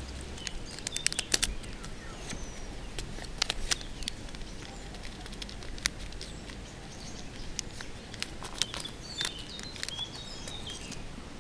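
Small sharp clicks and crinkles of a paper-and-plastic fishing hook packet and a line spool handled close to the microphone, with birds chirping faintly in the background.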